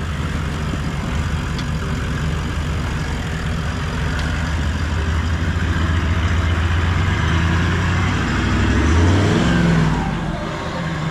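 Toyota LandCruiser 70-series engine pulling at low speed on an off-road track, its pitch rising briefly about eight seconds in and then dropping back.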